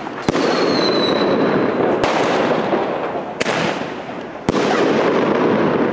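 Roman candle firing: four sharp shots at intervals of one to two seconds, with a continuous crackling hiss between them. A short falling whistle follows the first shot.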